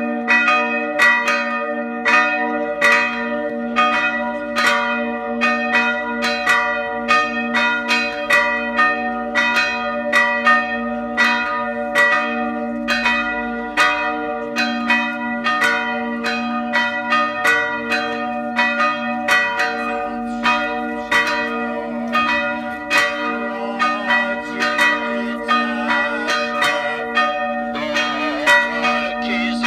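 Church bells ringing continuously: several bells struck in a steady, rapid stream of strokes, about two a second, their tones carrying on between the strikes.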